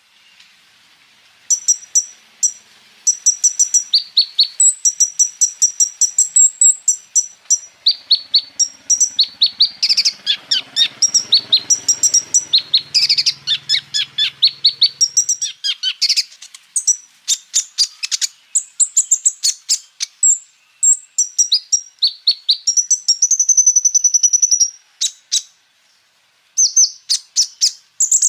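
Kolibri ninja sunbird singing a fast, high-pitched song of rapid chips and rolling trills, broken by a short pause near the end.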